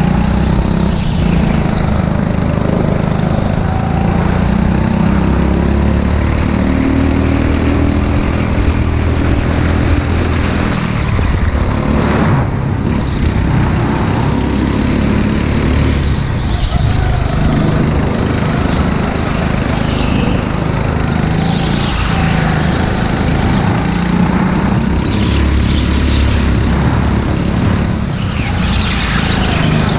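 Go-kart's small petrol engine running hard, heard from on board the kart, its pitch rising and falling again and again as the kart accelerates along the straights and slows into the corners.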